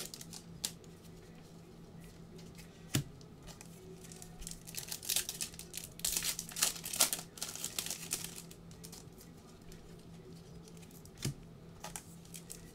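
Foil trading-card pack wrappers crinkling and tearing as the packs are opened by hand, in irregular bursts with a couple of sharper clicks.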